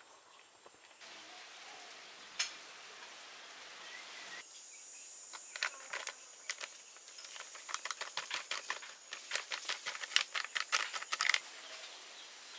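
Plastic packet of crispy-fry flour mix crinkling and rustling as it is shaken and tapped, the flour pouring out into a stainless steel bowl; a fast run of crackly clicks in the second half.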